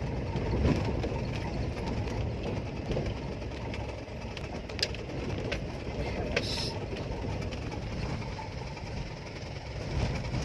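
Vehicle driving over a rough gravel road, heard from inside the cabin: a steady engine-and-road rumble with a few sharp clicks and knocks around the middle.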